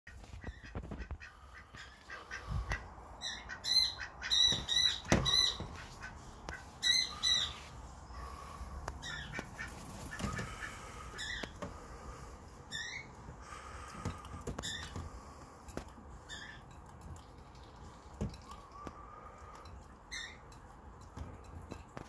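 Young gull giving repeated high, thin peeping calls, in quick runs about three to seven seconds in, then single calls spaced further apart. A few low knocks come in between.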